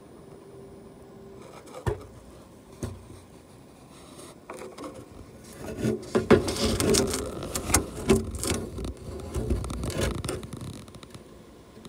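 Inspection camera and its cable scraping and knocking against the aluminium structure inside a Cessna wing: a couple of single knocks in the first three seconds, then a long stretch of dense scraping and rattling from about five and a half to ten and a half seconds in.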